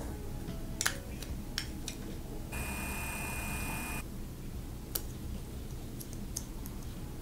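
Quiet handling sounds of depotting a cream balm with a small metal spatula into a clear plastic pot: a few light clicks and taps, and a steady scraping rub of about a second and a half near the middle. A low hum runs underneath.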